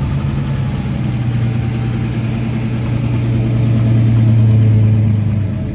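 Engine of a vintage Chevrolet 3100 pickup running steadily as the truck rolls slowly past, growing louder to a peak about four to five seconds in, then easing off.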